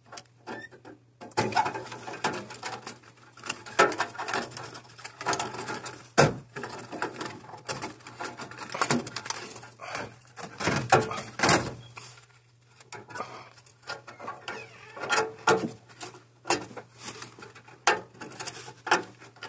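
Gloved hands working the wiring on a furnace control board: irregular clicks, taps and rustling from plastic harness connectors and wires being pulled and moved. A faint steady low hum runs underneath.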